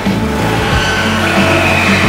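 Background music with a bass line and a beat.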